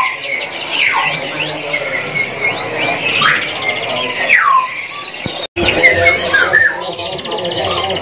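Several caged loper canaries singing at once: fast trills and chirps mixed with loud, steep downward-sliding whistle notes. The sound cuts out for an instant about five and a half seconds in.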